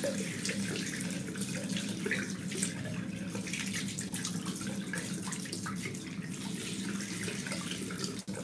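Water tap running steadily into a bathroom sink, with light splashing as water is scooped onto the face to rinse between razor passes.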